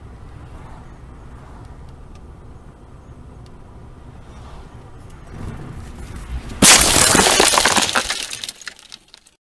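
Car cabin road noise, then about six and a half seconds in a sudden loud collision of the car carrying the dashcam: one heavy impact followed by about two seconds of cracking and rattling that dies away.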